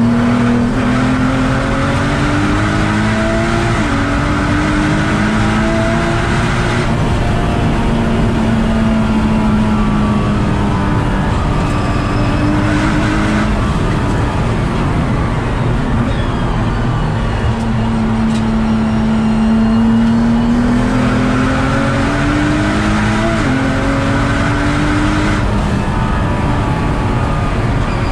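Nissan GT-R R35's twin-turbo V6 heard from inside the cabin at speed, with heavy road and wind noise. The engine note climbs under acceleration and drops at an upshift about 4 seconds in and again about 23 seconds in, holding steadier in between.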